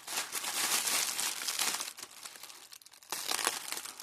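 Packaging being unwrapped and crumpled by hand, a crackly crinkling in two bouts, easing off for about a second in the middle.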